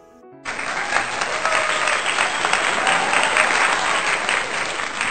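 Canned applause, a crowd clapping, cutting in abruptly about half a second in.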